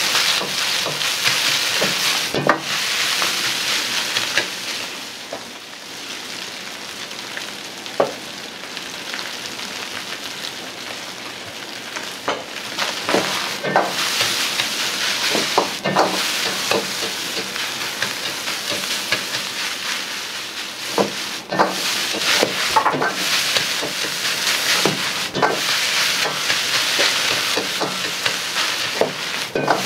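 Egg fried rice sizzling in a wok, with a metal ladle repeatedly scraping and knocking against the wok as the rice is stirred and pressed. The sizzle eases off for several seconds after about four seconds in, then grows loud again.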